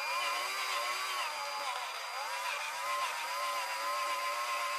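Craftsman power drill running steadily, spinning a tap that cuts hobbing teeth into an M8 bolt. The motor's pitch dips and recovers a couple of times as the tap loads up, then holds steadier.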